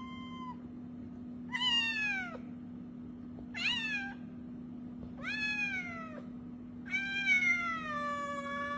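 Young grey cat meowing repeatedly: a short call at the start, then four drawn-out meows, each falling in pitch, the last one the longest.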